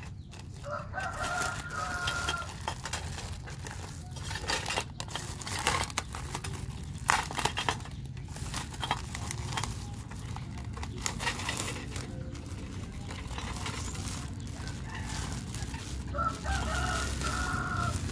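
A rooster crows twice, once about a second in and again near the end. Throughout, clear plastic wrap crinkles as it is pulled off a small toy stove.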